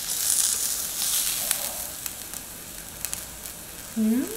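Sendai wagyu beef slices sizzling on a tabletop grill plate over a portable gas burner, a steady hiss with a few light clicks. Near the end a person gives a short rising hum.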